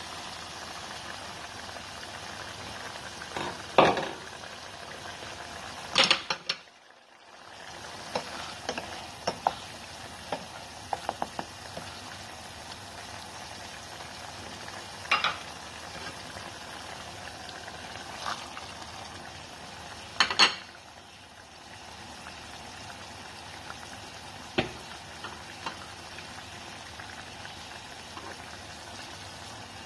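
Ground beef in ketchup sauce simmering in a pot with a steady bubbling hiss, stirred with a wooden spoon. The spoon knocks against the pot a dozen or so times, loudest about 4, 6 and 20 seconds in.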